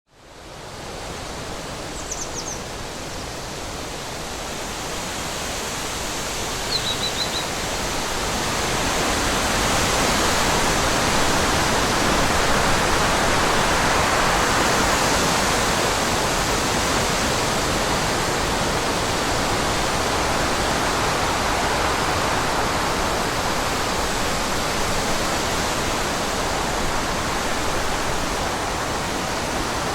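Strong wind blowing through forest trees, a steady rushing that fades in, swells in a long gust and then eases a little. Two brief high bird chirps come in the first several seconds.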